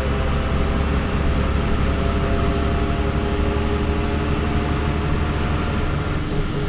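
Inside a Jelcz M121M city bus under way: its diesel engine and drivetrain give a steady low rumble with a steady multi-tone whine over it. The low rumble lessens slightly near the end.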